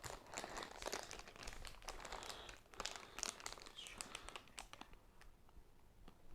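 Plastic toy packaging crinkling and crackling as it is handled: a quiet run of small crackles that thins out near the end.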